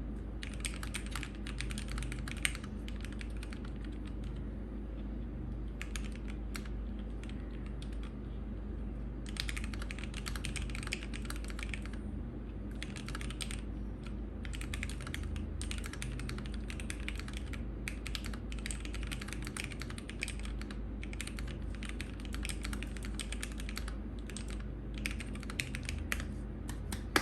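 Typing on a gasket-mounted mechanical keyboard (KBD67 Lite R3) with lubed and filmed Gateron Milky Yellow linear switches and PBT Cherry-profile keycaps: bursts of rapid keystrokes broken by short pauses, over a steady low hum.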